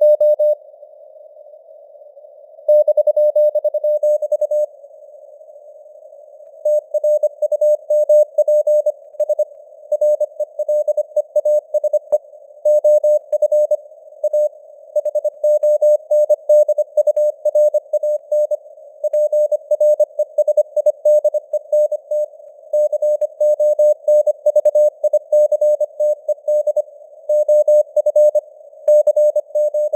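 Morse code sent at 25 words per minute as a keyed tone of about 600 Hz, in dots and dashes over a narrow band of simulated radio hiss, with the signal strength fading up and down (QSB). Twice in the first seven seconds the keying pauses for about two seconds and only the hiss is heard.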